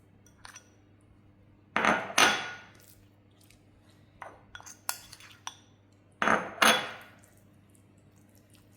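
Kitchen utensils and dishes clattering in two short bursts about four seconds apart, each a quick double clink with a bright ring, with a few light clicks between.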